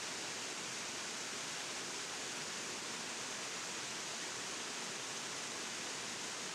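Small river waterfall pouring over rocks into a pool: a steady, unbroken rush of falling water.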